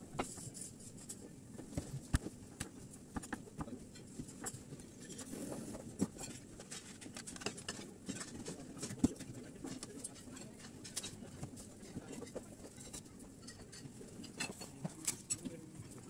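Scattered light taps and clicks of a knife slicing maki rolls and touching the plastic cutting board, with gloved hands handling the cut pieces, over a low steady kitchen hum. The taps come at an irregular pace, a few louder ones standing out.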